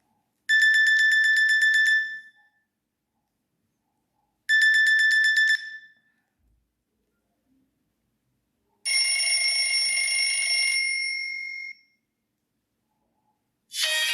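Nokia E66 playing its built-in alert tones through its loudspeaker: a rapid buzzing beep lasting about a second and a half, repeated once more briefly, then a different tone of several held notes sounding together for about two seconds. Near the end a musical ringtone begins.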